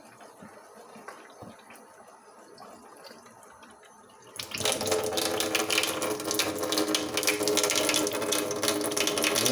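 Kangen Leveluk SD501 water ionizer starting to run water about four seconds in, a sudden steady rush of flowing water with a steady hum in it, flushing water through the newly installed HG-N filter. Before that, only faint low sound.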